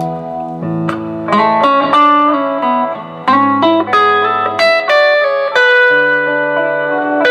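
Fender Road Worn Telecaster with a Vibra-Mate Bigsby vibrato, played clean, picking chords and single notes with a few bent notes. Under it runs a looped backing part recorded on an Orville by Gibson Les Paul, with the two guitars sounding in tune together.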